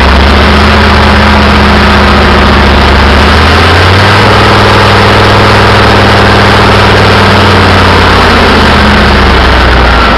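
Loud, steady running of a turbocharged 8-cylinder diesel engine on a test stand. Its note shifts slightly about four seconds in.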